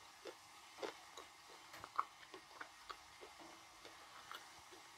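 Chewing a piece of blue Uzbek edible clay with the mouth closed: faint, irregular soft clicks in the mouth, about two or three a second.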